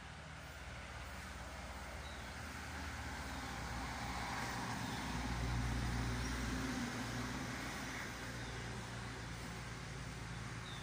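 A road vehicle passing on a nearby road, its low rumble swelling to a peak about halfway through and then fading.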